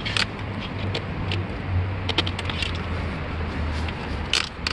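Scattered clicks and light rattles of hands working the straps and fittings of a hitch-mounted bike rack, with a sharper click near the end, over a steady low hum.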